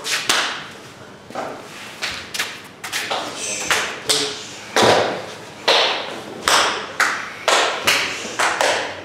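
Sumo wrestlers stomping shiko on the packed-clay practice ring: an irregular run of sharp thuds and smacks from several wrestlers, about two a second, each with a short echo.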